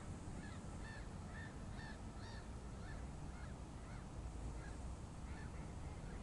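Geese honking: a loose series of about a dozen short calls spread over several seconds, with a steady low rumble underneath.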